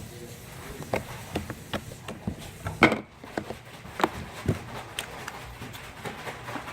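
Light blue slime with foam beads being squeezed and poked by hand, giving irregular sticky clicks, crackles and pops, with a few sharper snaps in the middle.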